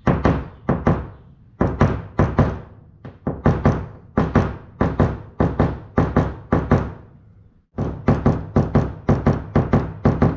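Hammer tapping a round-pointed knockdown pin against a car hood: a steady run of sharp knocks, mostly in quick pairs, about two to three a second, with a short pause near the end. This is paintless dent repair, tapping down a high spot left after pulling out a dent.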